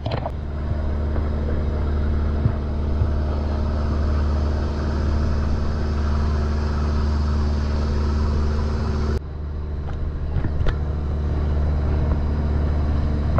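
Boat engine running steadily under way, a low, even drone, with water rushing and churning along the hull. The higher rushing noise drops abruptly about nine seconds in while the engine drone carries on.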